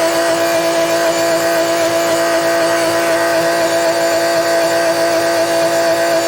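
Tractor engine running steadily at constant working speed while baling hay, with a strong, unchanging whine.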